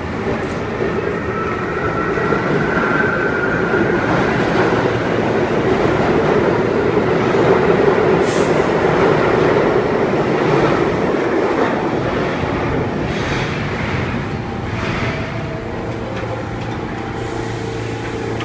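R46 subway train rumbling along the track past the platform, loudest about halfway through, then slowing to a stop. A faint thin wheel squeal comes in the first few seconds, and a steady low hum remains near the end as the cars stand.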